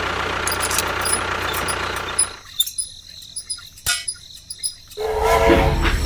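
Toy tractor's engine sound running steadily, stopping about two seconds in. A few light clicks follow, and a louder mechanical sound with a steady tone starts about five seconds in.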